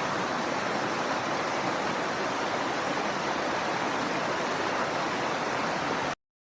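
Rushing water of a river stream and waterfall, a steady even rush that cuts off suddenly about six seconds in.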